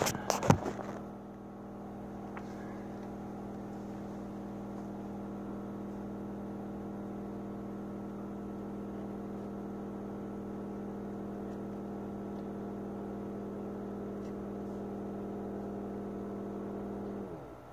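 A few handling knocks at the start, then a Fluval FX6 canister filter's pump motor running with a steady hum, unprimed with no water in the canister. Near the end the hum falls in pitch and stops as the motor winds down.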